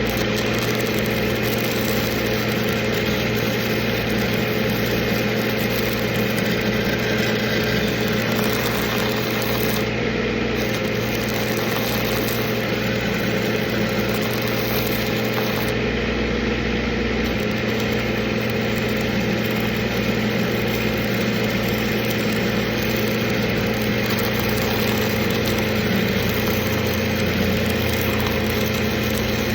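Engine-driven rig welding machine running at a steady speed, with a steady hiss over the engine hum.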